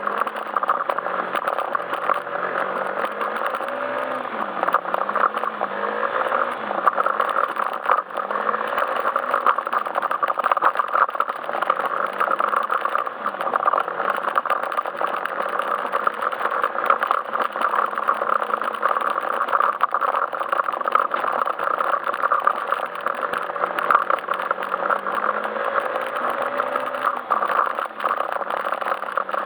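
Yamaha Majesty S scooter's single-cylinder engine running under way, its note rising and falling with the throttle, over steady rattling and road noise.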